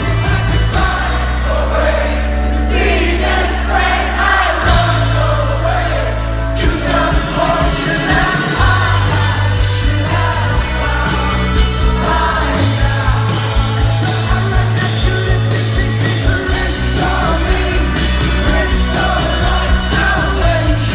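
Rock band playing live with a lead vocalist singing, over sustained bass notes that change every few seconds.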